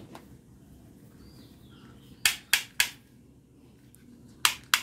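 Hard plastic toy guns being handled, giving sharp plastic clicks: three quick ones about a quarter second apart midway, then two more near the end.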